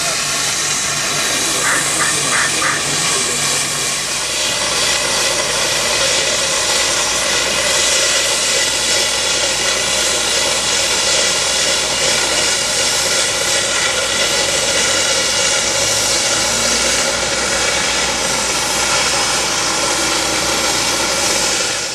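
Loud, steady machine drone with a strong hiss, like a large engine or blower running without change, cutting off sharply at the end. A few faint, quick high ticks come about two seconds in.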